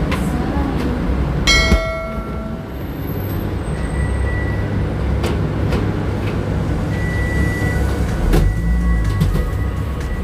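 A steady low rumble with faint background music over it, a brief ringing tone about a second and a half in, and a few scattered clicks.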